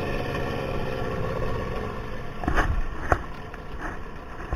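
Boat motor running and then easing off, its pitch sinking over the first two seconds as the boat slows, followed by two thumps about half a second apart near the middle.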